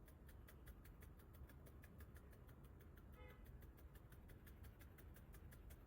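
Faint rapid ticking, about six even ticks a second, over near-silent room tone, with a brief faint squeak about three seconds in.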